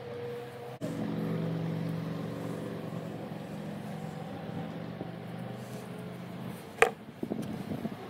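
A motor engine running steadily at one pitch starts abruptly about a second in and stops near the end. A single sharp click follows, then light handling rustles.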